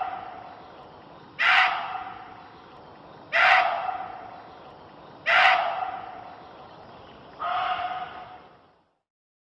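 Indian muntjac (barking deer) giving single sharp barks, four of them about two seconds apart, each trailing off in a fading echo; the last bark is more drawn-out.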